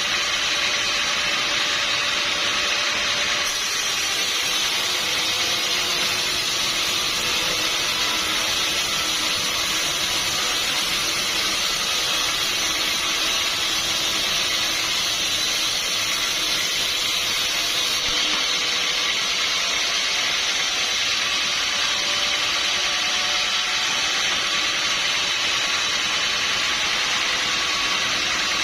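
Sawmill machinery running, a steady even noise that holds at the same level throughout.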